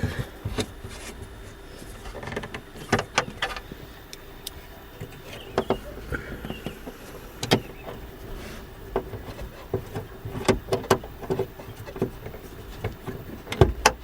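Scattered clicks, taps and knocks of hands and a screwdriver fitting a plastic dash panel back into place and driving in its screws, over a faint steady hum.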